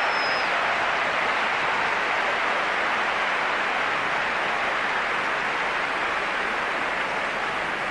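Large stadium crowd: a steady wash of applause and crowd noise, slowly fading.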